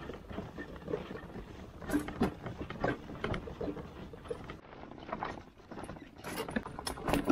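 Hiking sounds: footsteps and rattling gear, heard as irregular knocks, clicks and rustles, thickest from about two seconds in.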